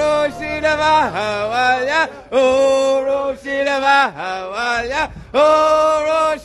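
A man's voice singing a slow chant, a string of long held notes with a dip in pitch between phrases.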